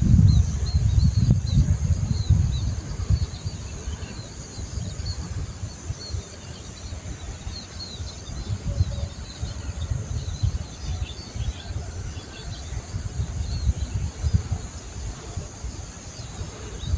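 Rural outdoor ambience: many small birds chirping in short repeated calls, over a steady high-pitched insect drone. An uneven low rumble of wind on the microphone, loudest at the start and again near the end, is the loudest sound.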